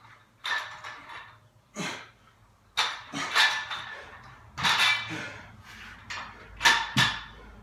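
Loaded steel barbell with iron plates clanking as it is lowered from overhead and set down and handled on the floor: a series of sudden metallic clanks, roughly one a second, each with a short ring.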